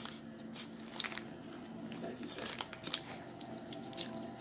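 A child eating pancakes by hand: chewing and mouth clicks, with scattered small crackles and rustles as the pieces are torn and handled, over a steady low hum.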